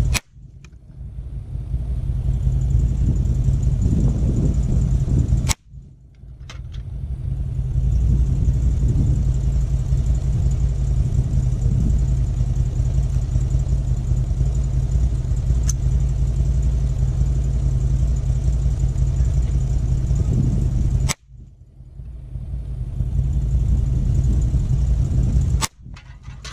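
.22 LR rifle shots, about five of them several seconds apart, each a sharp crack. Between them is a heavy low rumble of wind on the microphone, which drops out after most shots and swells back over a couple of seconds.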